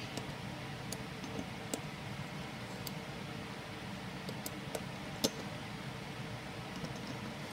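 Scattered light metallic clicks of a T-handle 5/32" Allen key being seated in and turning the small main body bolts of a metal wireline conveyance wheel, over a steady background hiss; the sharpest click comes about five seconds in.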